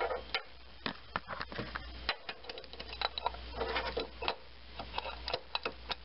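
Irregular metallic clicks and ticks from a 3/8-inch ratchet being fitted into the square hole of the serpentine belt tensioner, with light knocks of the tool against the engine parts.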